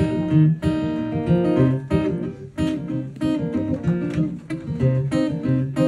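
Solo steel-string acoustic guitar playing an instrumental tune, with picked bass notes under a melody and a steady rhythm of strums.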